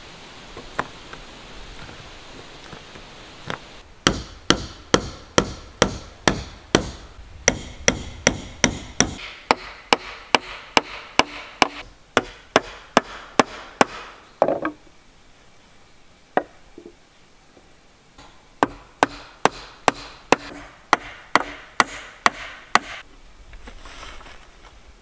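Hammer blows on wood, about two a second, with a faint ring on each strike. A long run of blows breaks off into a pause with one or two single knocks, then a shorter run follows.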